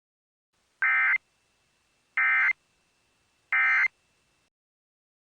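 Emergency Alert System end-of-message signal: three short, identical bursts of SAME digital data tones, about a second and a quarter apart. They mark the end of the alert.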